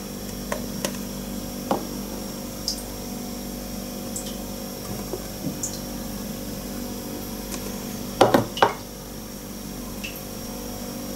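Sunflower oil poured from a bottle into a metal tablespoon and tipped into a dry frying pan: faint trickling and dripping with small clinks of the spoon, and a louder cluster of knocks about eight seconds in, over a steady low hum.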